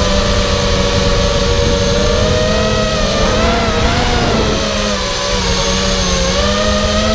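Brushless motors and propellers of a Charpu 210 FPV racing quadcopter, heard from its onboard camera: a loud whine of several close pitches that shift together with the throttle. The pitches waver and dip about three to four seconds in and climb again near the end, over a low rumble.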